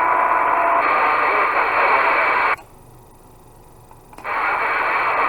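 CB radio receiver hiss and static, sounding narrow and thin as if through a radio speaker. It cuts off sharply about two and a half seconds in and comes back about a second and a half later, as a keyed-up carrier drops and another keys up.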